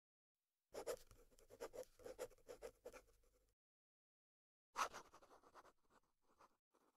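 Marker pen writing: faint quick scratchy strokes in two runs. The first lasts about three seconds, then there is a pause of about a second before the second run starts.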